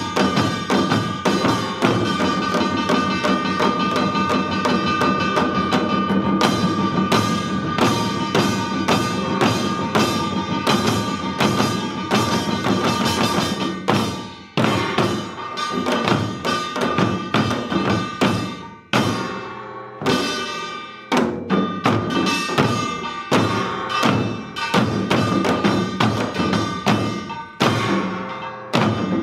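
Samulnori percussion ensemble of janggu hourglass drums and kkwaenggwari small gongs playing a fast, dense rhythm, the gongs ringing over the drum strokes. About halfway through, the playing opens into sparser, accented strokes with short breaks.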